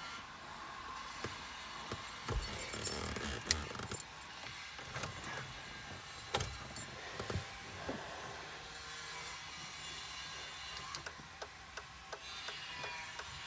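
Car keys jangling and clicking as the ignition key of an Audi A2 is put in and turned, a string of sharp clicks and knocks. Near the end a light, even ticking starts, about two or three ticks a second.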